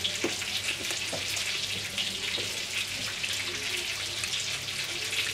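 Meatballs frying in a pan: a steady crackling sizzle with scattered small pops.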